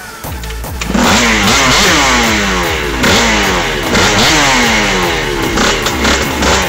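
Tuned scooter engine revved hard again and again with the rear wheel spinning free on a stand, its pitch climbing in repeated sweeps about once a second, starting about a second in.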